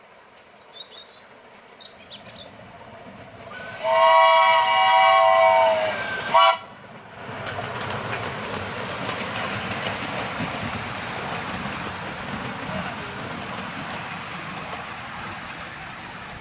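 Miniature railway locomotive whistle blowing one long blast and then a short one, followed by the train running steadily past.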